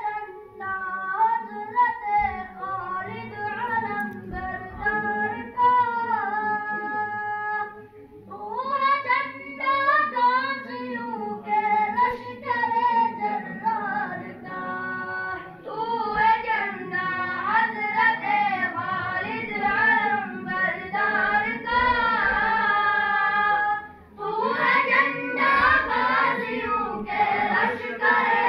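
A boy singing a devotional song unaccompanied, in long melodic phrases with short breaks about 8, 15 and 24 seconds in.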